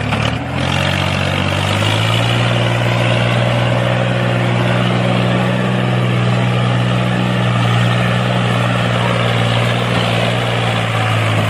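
Tractor engine running steadily, its pitch rising a little over the first couple of seconds and then holding level.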